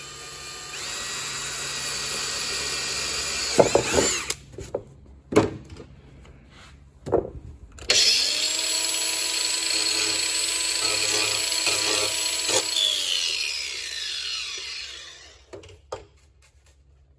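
Cordless drill running as its bit bores out a lug in a plastic MAXTRAX recovery board, followed by a few sharp knocks and clatters. Then an angle grinder runs steadily for several seconds, and about 13 seconds in it is switched off and winds down with a falling whine.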